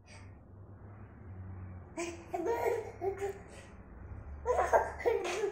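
A toddler babbling and laughing: a few short, high-pitched vocal sounds starting about two seconds in, the loudest near the end.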